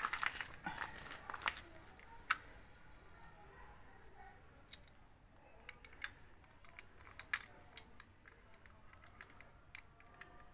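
Small metal clicks and taps of new brake pads being handled and fitted into a motorcycle's front brake caliper. A quick run of rattling clicks in the first two seconds, then scattered single clicks.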